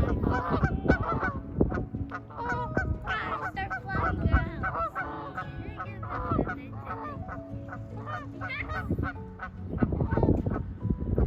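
A flock of geese honking, many short calls overlapping without pause; the owner takes the calling as a sign that they are hungry.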